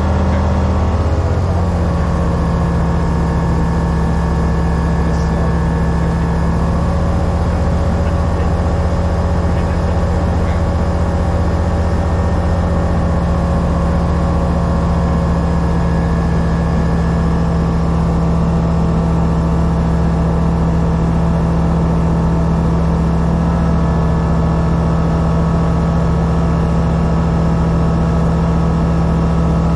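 Rotax 912 four-cylinder engine and MT constant-speed propeller of a Grob G109B motorglider running steadily, heard from inside the cockpit. The engine note drops slightly about a second in, then holds steady.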